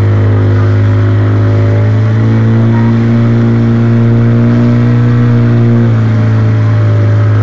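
Small motorboat's engine running steadily at speed, loud and close, its note shifting a little between about two and six seconds in, over the rush of water from the wake.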